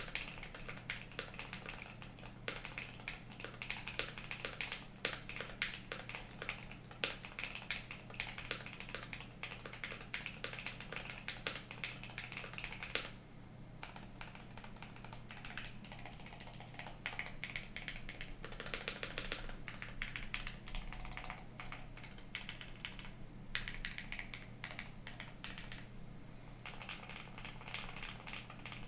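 Typing on a custom mechanical keyboard with a GK68XS aluminium case, lubed SP-Star Meteor White switches and dye-sub PBT keycaps: a fast, dense run of keystroke clacks, with a brief pause about halfway through.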